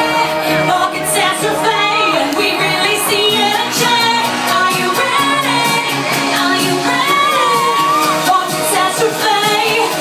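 Pop music with a woman singing into a microphone over a backing track with a steady beat.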